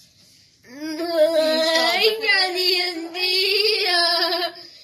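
A child's high voice singing loudly without words: one long, wavering note that slides up as it starts about a second in and breaks off just before the end.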